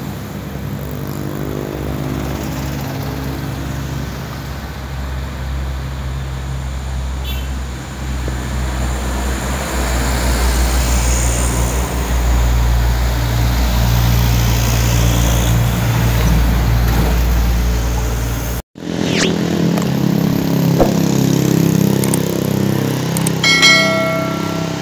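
Heavy diesel lorry engines running under load as trucks pass on the road, growing louder as one goes by. After a break, more traffic engines, and near the end a short blast of a multi-tone vehicle horn.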